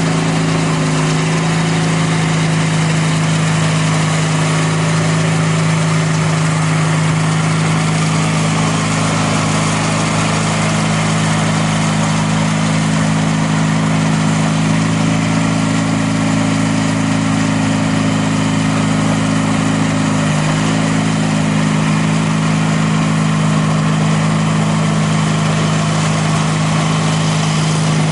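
The 18 hp Briggs & Stratton horizontal twin of a Sears/Roper GT18 garden tractor running steadily under load, driving a 42-inch shaft-driven snowblower that is throwing snow. Its pitch sags briefly about twenty seconds in.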